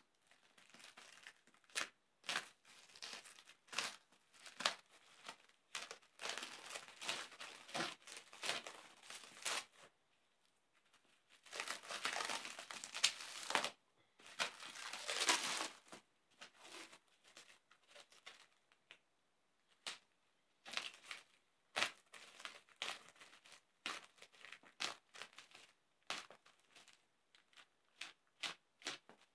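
Black plastic wrapping on a long parcel being slit with a knife and pulled open: crackling and crinkling of the plastic. There are longer tearing stretches about a third of the way in and again in the middle.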